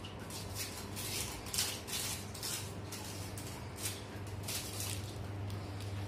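Hissing rustles from a plastic piping bag being squeezed as whipped cream is piped onto a cake, in short runs over a steady low hum.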